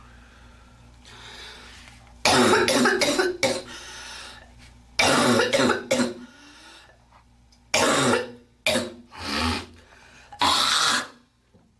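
A girl coughing hard in about five separate loud fits, with some throat clearing.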